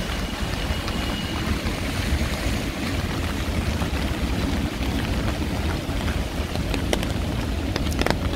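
Heavy rain falling on a city street: a steady hiss with a strong low rumble underneath, and a few sharp drip taps near the end.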